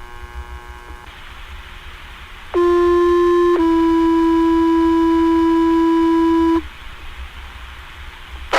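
Two-tone sequential fire pager alert over dispatch radio, received on a scanner: a one-second tone followed at once by a slightly lower tone held for about three seconds. These are the tones that set off firefighters' pagers ahead of a voice page. Radio hiss surrounds them, and a sharp squelch click comes at the end.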